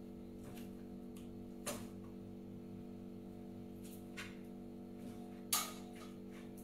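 A few scattered taps and knocks of a knife and cooked chicken on a cutting board, the loudest about five and a half seconds in, over a steady hum.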